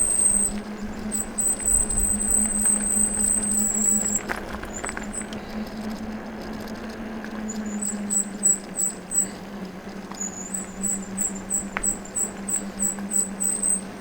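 Engwe L20 fat-tyre electric bike in motion: a steady low hum with wind and rolling noise. Over it runs a thin, high squeal, held steady at first, then broken from about the middle into quick rhythmic chirps, about two to three a second.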